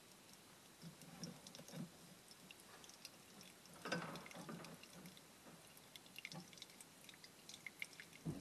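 Brake fluid gravity-draining from the cracked-open bleeder screw of a clutch master cylinder into a metal pan: faint scattered drips and small splashes, a little louder about four seconds in.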